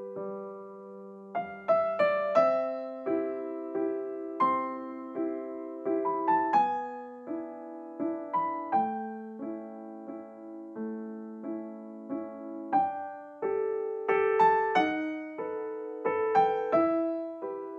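Background music: a slow solo piano piece, melody notes struck over held low notes.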